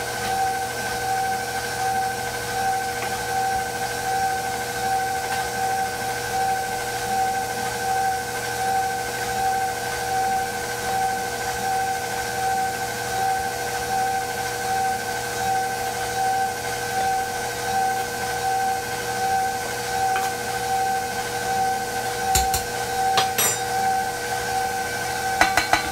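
KitchenAid bowl-lift stand mixer running at speed, its motor giving a steady whine as it beats sponge cake batter. A few short clicks come near the end.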